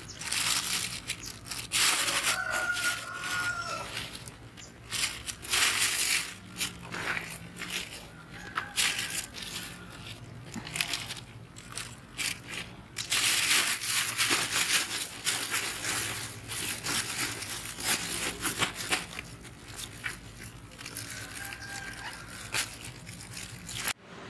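Irregular rustling, crunching and snapping of leafy vegetable plants and stems being handled and picked, in quick uneven bursts.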